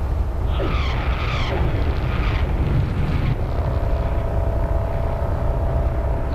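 A loud, steady deep rumble of horror-film sound design, with a creaking sound of bending pitches from about half a second to two and a half seconds in, and a steady held tone joining from about three and a half seconds.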